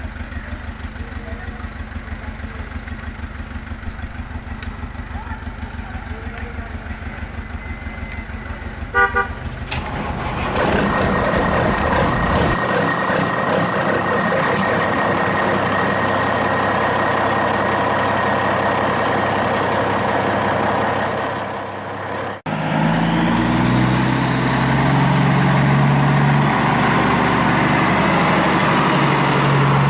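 Vehicle engine sounds: a steady throbbing engine, a short horn toot about nine seconds in, then a louder engine with a high whine. It cuts off suddenly about two-thirds of the way through into another engine with a rising whine.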